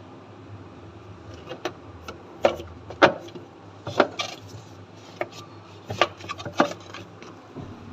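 A series of sharp clicks and knocks at irregular intervals, over a low steady hum.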